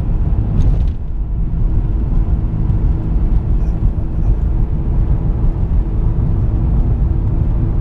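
A car driving, heard from inside the cabin: a steady low rumble of engine and road noise, with a brief dip about a second in.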